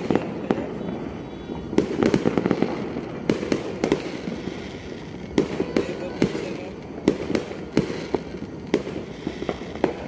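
New Year fireworks going off across a city: an irregular, overlapping stream of sharp bangs and pops over a steady crackling haze, with busier clusters of several bangs at a time.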